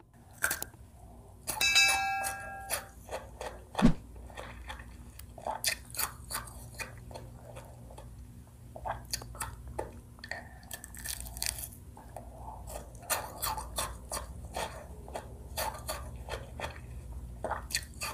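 Close-miked eating of a frozen yogurt ice cream bar: bites, wet mouth smacks and chewing clicks, scattered irregularly throughout. A brief ringing chime sounds about two seconds in.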